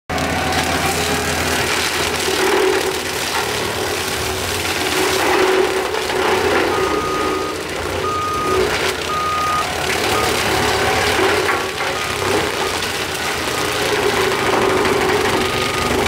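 Skid steer engine running steadily with a brush cutter attachment. From about halfway through, its backup alarm beeps at one pitch roughly once a second as it reverses, then grows fainter.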